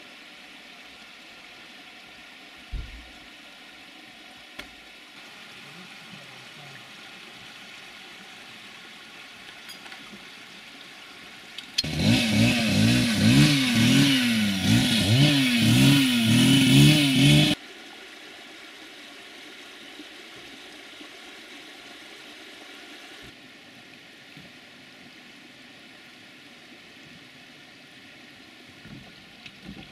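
An engine revved up and down repeatedly for about five seconds, starting about twelve seconds in and cutting off suddenly. Before and after it there is only a faint, steady background with a couple of short knocks early on.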